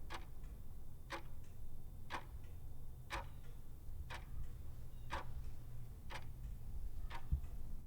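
Regular ticking, one sharp tick about every second with a fainter tick midway between, over a steady low hum.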